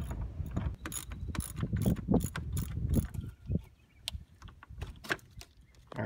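Ratchet wrench clicking in quick runs as a 10 mm bolt on the radiator fan shroud is turned out, the clicks thinning to a few scattered ones after about three and a half seconds.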